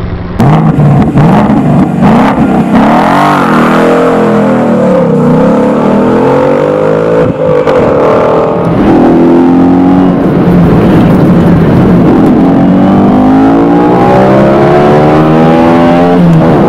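Ford Mustang GT's naturally aspirated V8 revving hard, its pitch climbing under acceleration and falling off again several times as the car is driven fast through bends. It cuts in suddenly about half a second in and is loud throughout.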